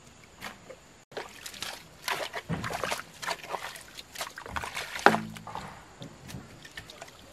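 A hoe chopping and scraping wet mud in a trench, with wet slaps and sloshes, and one sharp knock about five seconds in.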